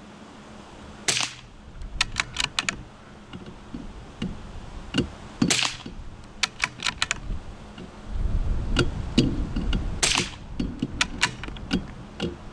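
Three .22 LR rifle shots from an Anschütz rifle firing RWS Subsonic hollow-point rounds, about four to five seconds apart, each followed by a quick run of sharp clicks.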